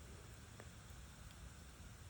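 Wood campfire burning quietly: a faint steady hiss with a couple of small crackles, one about half a second in and a fainter one past the first second.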